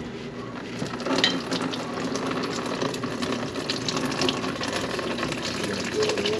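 Water from a clogged kitchen sink drain pouring and splashing out of the drain piping, with scattered clicks and knocks.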